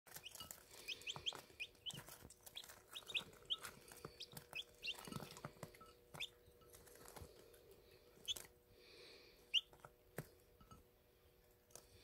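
A brood of newly hatched chicks peeping: many short high peeps, thick in the first half and thinning out later. Scattered sharp taps and a faint steady hum lie underneath.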